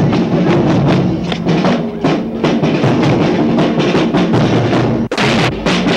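High school marching band playing: drums keep a steady beat under sustained low brass, with sousaphones in the band. A brief dropout about five seconds in, after which the band carries on.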